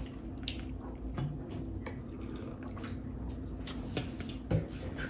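A person drinking from a plastic water bottle: faint gulps and swallows with a few small clicks from the bottle.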